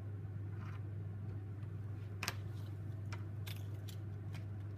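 Dry-erase marker writing on a whiteboard: a few short, faint scratches and taps as the numerals are drawn, over a steady low hum.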